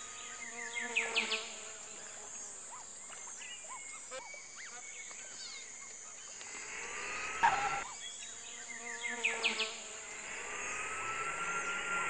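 Insect-like buzzing and short chirping sound effects over a steady high-pitched hiss. The buzzy chirps come in two clusters, about a second in and again around nine seconds, with a rising whine shortly before each of the last two moments.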